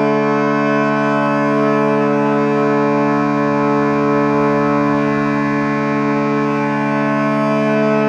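Ambient meditation music in 432 Hz tuning: a steady, held drone chord that does not change, with no beat.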